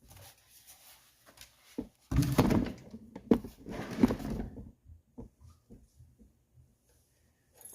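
Rustling, scraping and a few light knocks as a seat cover is handled and pulled over the foam of an ATV seat, loudest between about two and four and a half seconds in.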